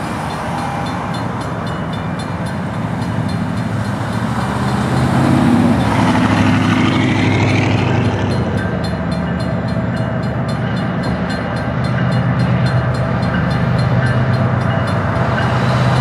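Diesel freight locomotives approaching a grade crossing, the engines running with a low sound that grows louder in the last few seconds. The air horn sounds about five seconds in, and the crossing warning bell rings in a steady, even rhythm.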